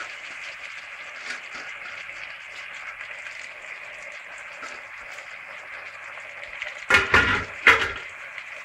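Chopped fresh coriander and garlic sizzling in hot olive oil in an aluminium pot, a steady crackling hiss. Two brief, louder handling noises come about seven and eight seconds in.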